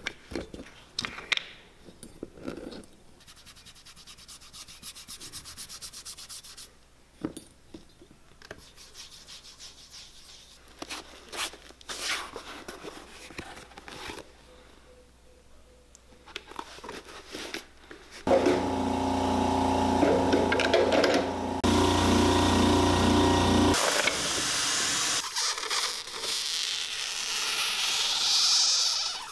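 Hand work on a rubber shoe sole in a cobbler's shop: light rubbing, scraping and small clicks. About 18 seconds in, a shop machine's motor runs loudly and steadily for about five seconds, then a high, steady sanding hiss follows.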